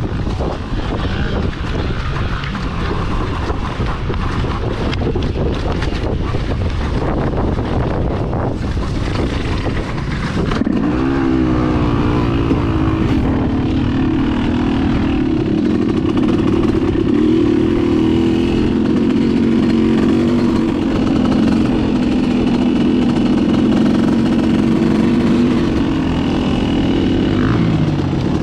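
Dirt bike engine heard from the rider's own bike: for the first ten seconds mostly a rushing, noisy rumble with no clear engine note. About ten seconds in the engine note rises and then holds steady under throttle.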